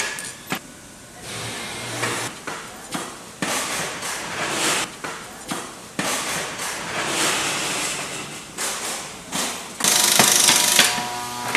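Wood-processing production machinery working: an uneven run of knocks and clattering, with a loud burst of hissing noise lasting about a second near the end.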